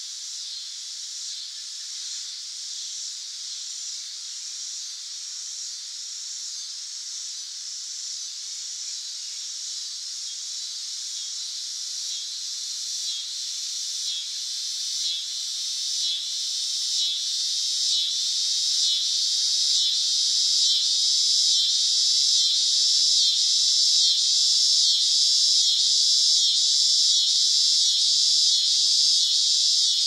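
Cicadas singing: a shrill, high buzz that pulses in a regular rhythm, growing steadily louder over the first two-thirds and then holding.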